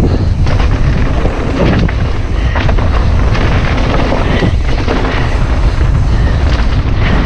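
Wind buffeting the mountain bike's on-board camera microphone while riding dirt singletrack, with the rumble of the tyres and frequent knocks and rattles from the bike over bumps.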